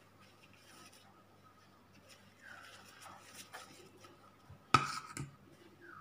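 Soft handling sounds of a wrapper being rolled on a ceramic plate, with a sharp clink about three-quarters of the way through, a metal spoon knocking on the plate, and a lighter knock right after it.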